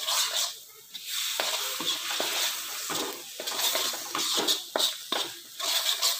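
Steel spoon scraping and stirring thick masala paste around a metal kadhai in irregular strokes, over the steady sizzle of the oil the paste is frying in on low heat.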